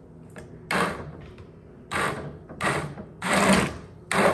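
Handheld immersion blender run in about five short pulses, puréeing shrimp into a creamy soup in the pot.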